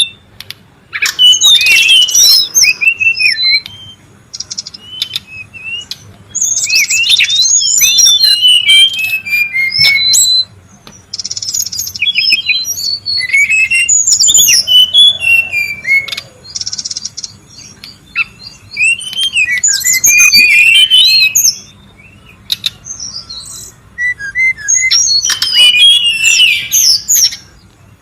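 Brown-chested jungle flycatcher calling: repeated bursts of rapid chirps and quick rising and falling whistles, in phrases of a second or two separated by short pauses.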